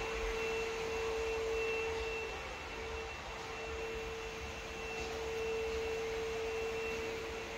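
A steady hum: one held mid-pitched tone with a fainter high tone above it, over an even hiss, dipping briefly twice.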